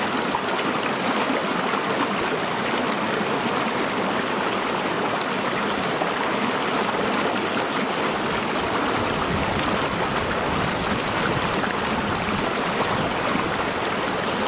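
Small rocky river running low and clear, its water spilling over stones in a steady splashing flow.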